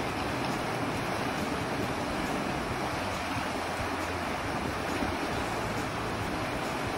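Fast river rapids rushing: a steady, even noise of whitewater close by.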